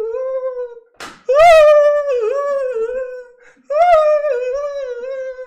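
A man letting out long, high-pitched wordless howls in celebration. One cry trails off about a second in, then two more follow, each starting sharply, held for about two seconds and wavering slightly down.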